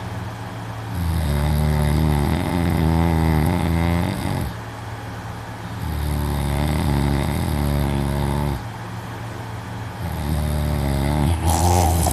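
A young man snoring loudly in his sleep: three long snores, each about three seconds long, with pauses of a second or so between them. The third turns harsher and noisier near the end.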